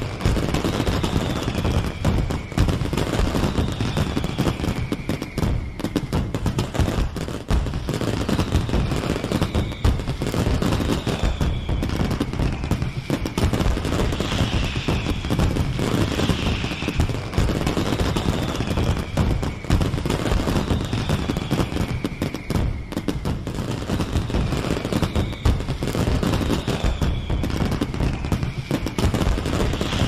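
Fireworks sound effect: a dense, continual barrage of cracks and bangs, with falling whistles coming every second or two.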